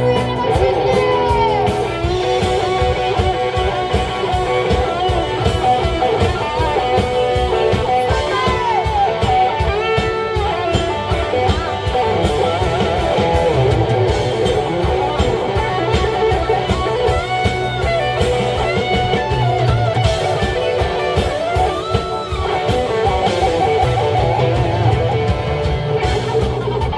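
Live rock band playing an instrumental passage: electric guitars over bass, drums and keyboard, with a lead line that slides up and down in pitch.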